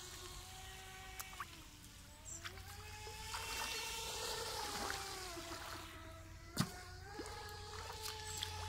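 Motor of an RC speedboat whining out on the lake, its pitch dropping and rising again a few times as the throttle changes, over light splashing of feet wading through shallow water. A sharp knock about six and a half seconds in.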